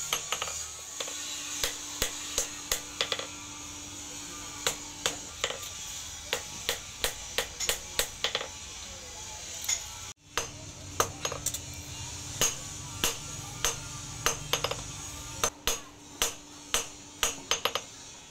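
Hand hammer striking a steel blade forged from an old file on an anvil: sharp metallic blows, about one to two a second at an irregular pace, each ringing briefly. The blows break off for a moment about ten seconds in.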